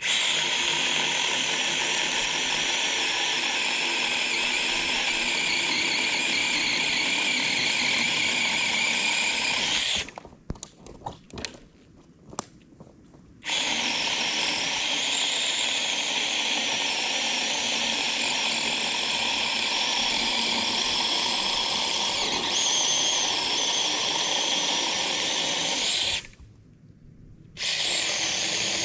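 Seesii 8-inch cordless brushless electric chainsaw running with a steady high whine, switched off and on by its trigger: it stops about ten seconds in, with a few light clicks in the pause, starts again a few seconds later, and stops briefly once more near the end.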